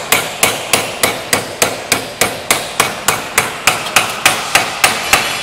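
Steady hand hammering, about three blows a second, each blow with a short bright ring; the blows stop near the end.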